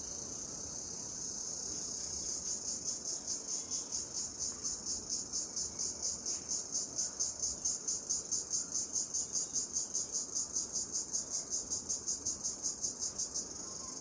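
High-pitched insect call over a steady insect buzz. About two seconds in it breaks into rapid, even pulses, roughly four to five a second, which stop abruptly shortly before the end.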